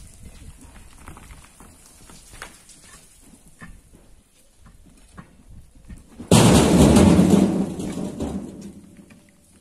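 Faint scattered ticks and knocks, then about six seconds in a sudden loud rumbling rush of rocks and earth falling down the quarry wall. It holds for about a second and a half and dies away over the next two seconds.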